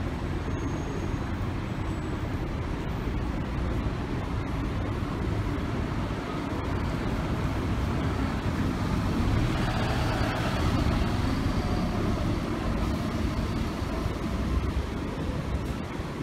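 A city route bus driving past close by, its engine and tyres swelling loudest about ten seconds in and then fading as it turns away, over a steady low traffic rumble.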